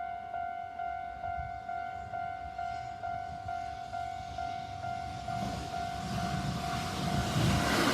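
Japanese railway level-crossing warning bell ringing in a steady repeating ding about three times a second. From about five seconds in, the rumble of an approaching train rises and grows loud near the end.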